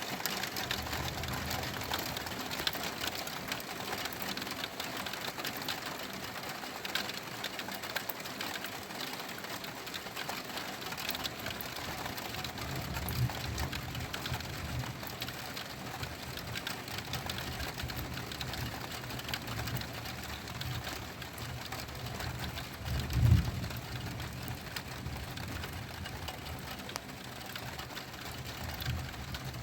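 Steady rain patter during a thunderstorm. A low rumble of distant thunder swells in about halfway through and briefly peaks about three-quarters of the way in.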